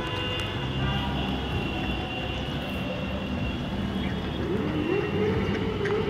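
Road traffic passing with a steady rumble, and from about four and a half seconds in one vehicle's engine note rising, holding, then falling away.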